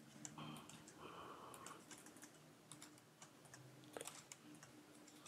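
Near silence: room tone with a faint steady hum and irregular faint clicks of keys or voting buttons being pressed while an electronic vote is cast.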